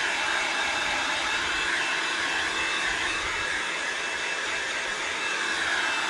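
Black+Decker electric heat gun running steadily, its fan blowing a constant rush of hot air, with a faint high whine, to dry freshly sprayed base coat paint.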